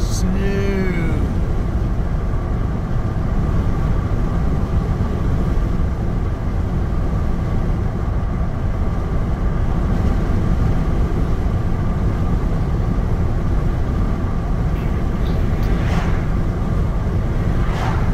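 Steady engine and tyre road noise heard from inside a truck's cab while cruising on the highway, with a faint steady hum above it.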